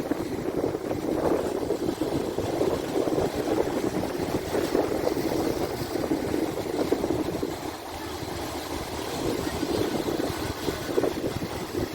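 Sea waves washing ashore: a continuous rushing of water that swells and eases, dipping briefly about two-thirds of the way through.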